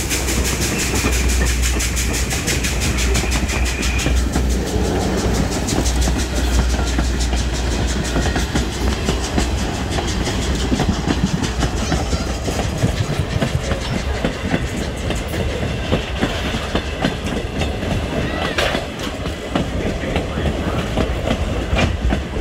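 Passenger coaches and the tender of Norfolk & Western steam locomotive 611 rolling past close by: a steady low rumble with the wheels clicking rapidly over the rail joints. A hiss from the locomotive fades out over the first few seconds.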